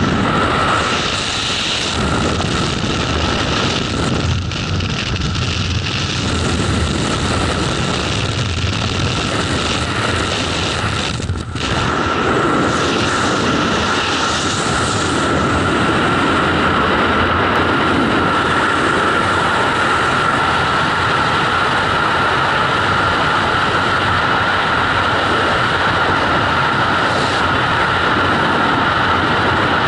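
Freefall wind rushing past a skydiver's body-mounted camera: a loud, steady rush of air, with a steady whistle coming in from about twelve seconds on.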